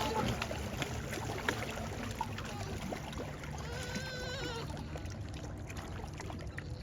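A dog whining, with one drawn-out, slightly wavering whine about four seconds in, over a steady low background rumble.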